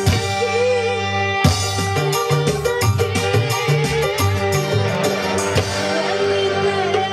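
Loud amplified live music with a steady drum beat and a girl singing into a handheld microphone over the sound system.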